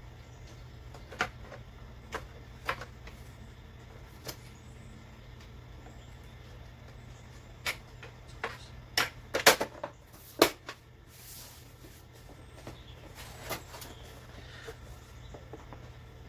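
Irregular sharp clicks and knocks of monitor parts being handled and fitted back together during reassembly, loudest in a quick cluster about nine to ten and a half seconds in, over a low steady hum.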